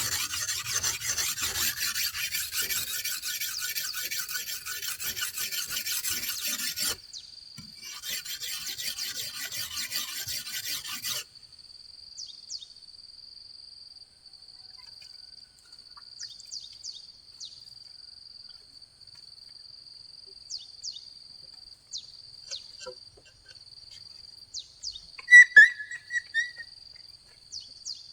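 Rhythmic rasping, scraping strokes for about eleven seconds, broken once by a short pause. Then a steady, high, thin insect drone with scattered light clicks, and one brief loud chirp-like sound near the end.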